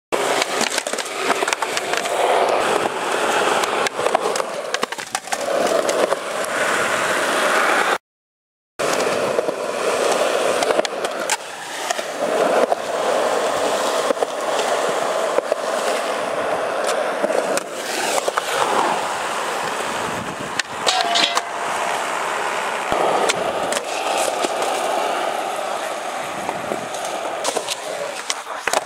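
Skateboard wheels rolling over rough concrete, with sharp clacks of the board as tricks are popped and landed. The sound cuts out completely for a moment about eight seconds in.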